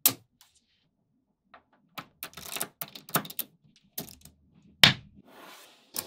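Small magnetic balls clicking and snapping together as they are set in place: one sharp click, a pause of over a second, then a run of clicks and short rattles with the loudest snap near the end.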